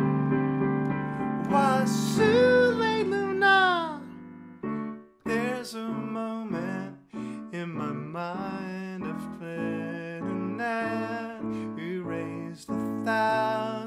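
A digital piano played with a man singing along. A long sung note bends and falls away about two to four seconds in. After a brief dip, a stretch of choppy, rhythmic piano chords follows with the voice continuing over them.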